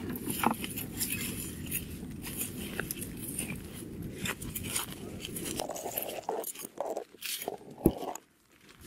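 Footsteps crunching irregularly over dry leaves and twigs on a path, over a steady low rumble, with one sharp knock shortly before the end.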